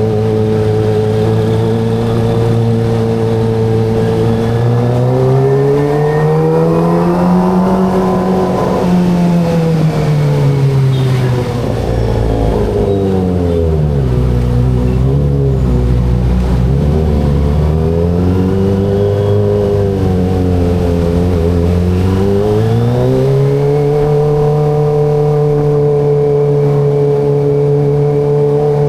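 Kawasaki ZX-25RR's 250 cc inline-four engine running under way, unmuffled by narration. It holds a steady tone, rises and falls in pitch through the middle as the throttle is opened and closed, drops low for a few seconds, then climbs again and holds steady near the end.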